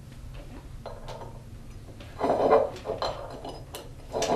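Small metal parts clinking and knocking as reel parts are set on a metal press plate under an arbor press. There are a few light clicks and one louder clatter about two seconds in.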